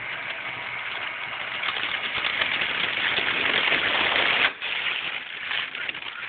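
Volcano Classic vaporizer's air pump running, a steady rush of blown air that grows slightly louder. It cuts out briefly about four and a half seconds in, then carries on a little quieter.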